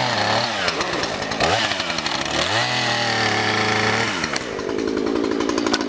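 Two-stroke chainsaw revved up and down several times, its pitch rising and falling, then dropping away about four seconds in to a rougher, lower running sound.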